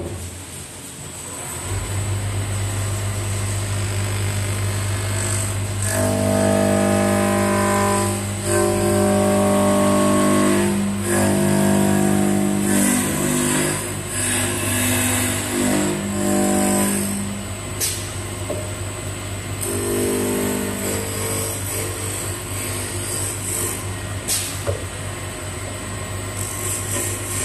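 GoodCut GC1020WL-H automatic wood lathe: the spindle starts about two seconds in and runs with a steady hum. From about six seconds to seventeen, the cutter bites into the spinning square wooden block with a loud pitched buzz as the corners are roughed off, and it buzzes again briefly near twenty seconds.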